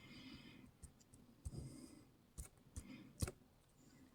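Faint small clicks and taps from pins being taken out of an Abus EC880 dimple lock cylinder one at a time. There are a few scattered clicks, the loudest about three seconds in.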